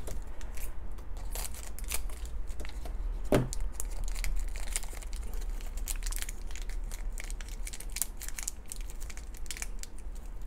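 Crinkling and tearing of a shiny plastic blind-bag wrapper being pulled open by hand: a quick, irregular run of small crackles.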